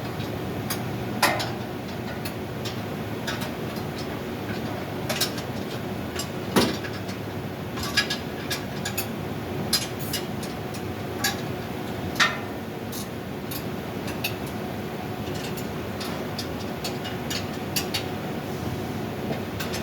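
Irregular clicks and knocks of tools and metal parts being handled during the AHU blower installation, about a dozen scattered sharp hits, the loudest about a second in, near six and a half seconds, and around twelve seconds. Underneath runs a steady machinery hum with a faint steady tone.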